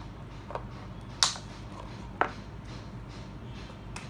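Plastic back cover of an X3 smartwatch being pried off: two sharp snaps about a second apart, with a couple of fainter clicks.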